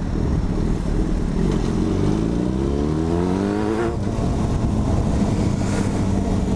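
A 2006 Yamaha FZ6's 600 cc inline-four, running through an aftermarket dual carbon exhaust, heard while riding. It rises in pitch under acceleration about two seconds in, drops sharply around the four-second mark as the throttle comes off or a gear changes, then runs steadier. Low wind rumble on the helmet microphone lies underneath.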